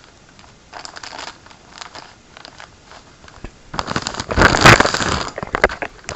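Shipping packaging crinkling and crackling as it is worked open by hand, in short rustles and then a loud burst of crinkling about four seconds in.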